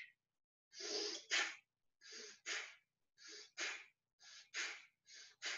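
Slow bhastrika (bellows) breathing through the nose: about five rounds of a quick nasal breath in and a forceful breath out, roughly one round a second, with short gaps of silence between them.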